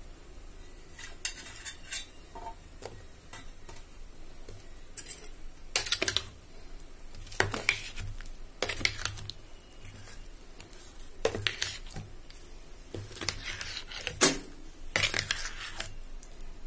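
Steel spoon scraping and clinking against a stainless steel bowl in irregular strokes as thick urad dal chutney is stirred together with chopped onion pieces. The loudest knock comes about fourteen seconds in.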